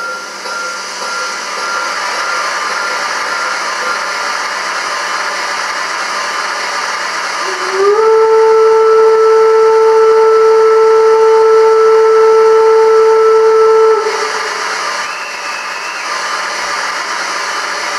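Gauge 1 BR 50 model steam locomotive's onboard sound and steam effect: a steady hiss of steam, then about eight seconds in a single long steam whistle that slides up into pitch and holds for about six seconds before cutting off, with the hiss carrying on after it.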